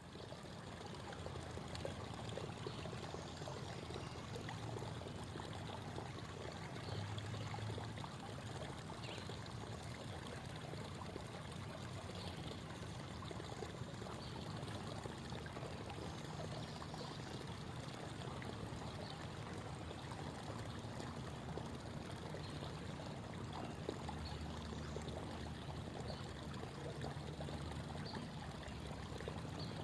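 Creek babbling: a steady rush of running water.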